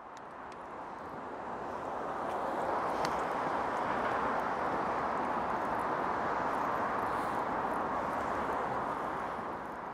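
Outdoor urban ambience: a steady rushing noise, without voices or music, that swells over the first few seconds and fades away near the end, with a few faint clicks.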